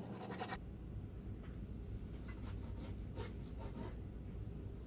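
Knife cutting raw bacon into small pieces on a cutting board: irregular soft cutting and scraping strokes, over a steady low hum.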